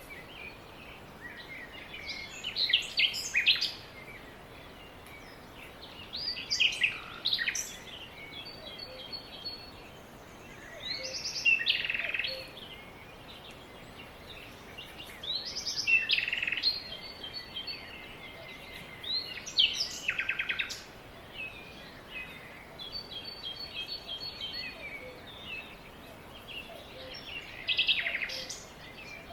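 Songbirds singing: short, varied song phrases repeated every four or five seconds, with fainter trills between them.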